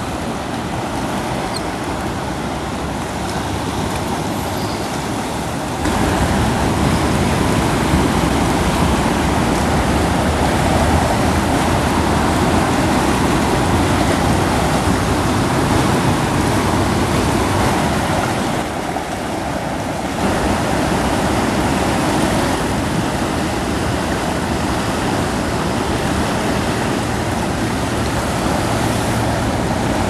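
Steady rushing of a river running high with spring runoff. The rush steps up about six seconds in and dips briefly past the middle.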